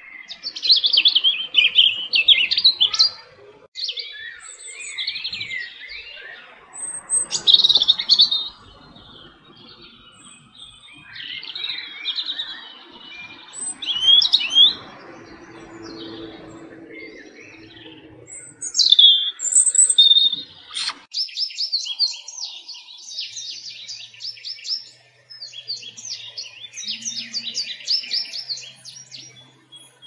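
European robin singing: phrases of varied high warbling notes and thin whistles, each a second or two long, broken by short pauses. From about two-thirds of the way in, a faster, denser run of rapid high chirps takes over.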